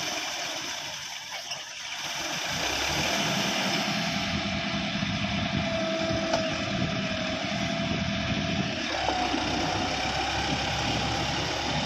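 John Deere 5210 tractor's 50 hp diesel engine running steadily as the tractor works through wet paddy mud, dipping briefly about a second in and then picking back up.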